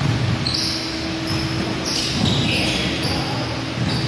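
Indoor basketball game on a hardwood court: the ball bouncing and players' sneakers squeaking in short high bursts now and then, echoing in a large gym hall.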